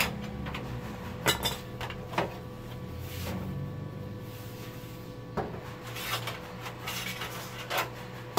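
Plastic back cover of a flat-screen LED TV being lifted off and handled: scattered clicks and knocks of plastic, about eight in all, over a steady low hum.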